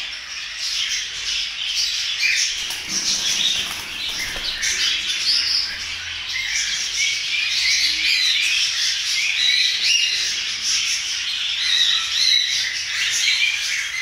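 A flock of caged cockatiels and other small parrots calling all at once: a dense, continuous chatter of short squawks and chirps.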